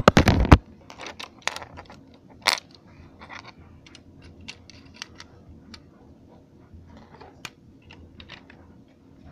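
A loud bumping clatter at the start as the camera is set down, then scattered small clicks and rattles of plastic Lego bricks being handled and pressed together, busiest in the first few seconds and thinning out after.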